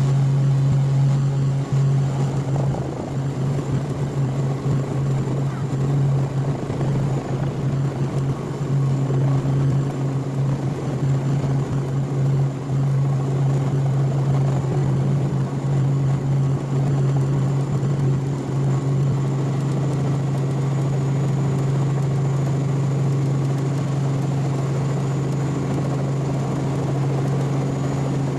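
Light helicopter's engine and rotor running steadily, heard from inside the cabin: a loud, even low drone with a constant hum over it.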